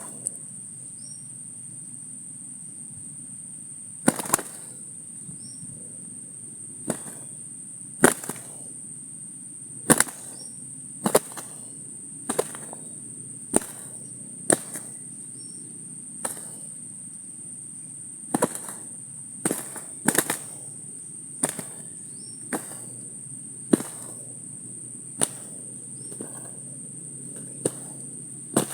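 Sharp, loud clicks at an uneven pace, about one every one to two seconds, over a steady high-pitched insect drone.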